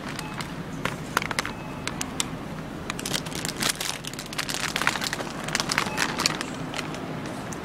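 Irregular crinkling and crackling handling noise close to the phone's microphone while walking, over a steady low hum.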